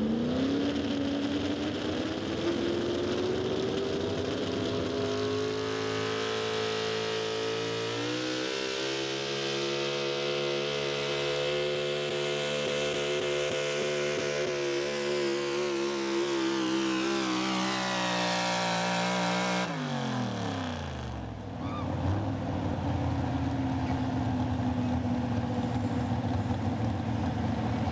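Ford pro stock 4x4 pulling truck's engine under full throttle during a sled pull. The revs climb over the first eight seconds or so and hold high, then fall away sharply about twenty seconds in as the throttle comes off. After that the engine runs on at a lower, steady speed.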